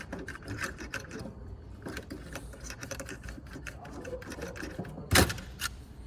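Small plastic clicks and rattles as a wiring-harness connector is worked loose from a steering wheel's plastic button-switch frame, with one sharper snap about five seconds in.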